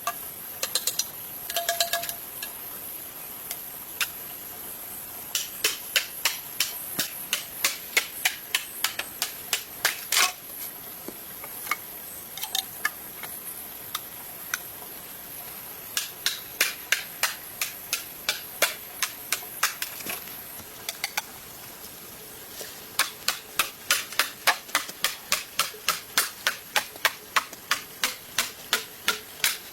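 Hand-tool work on wood: sharp knocks, evenly spaced at about two a second, in three runs separated by short pauses. A steady high hiss runs under the first two runs and stops about 21 seconds in.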